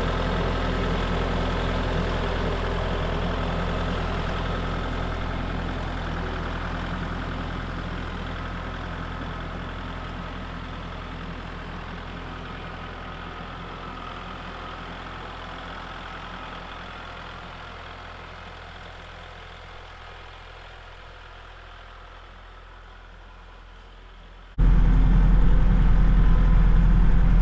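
Kubota tractor's diesel engine running steadily, slowly growing fainter over about twenty seconds, then suddenly much louder and closer near the end.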